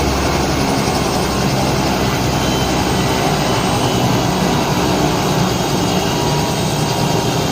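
Helicopter engine and rotor running close by: a loud, steady noise that holds evenly.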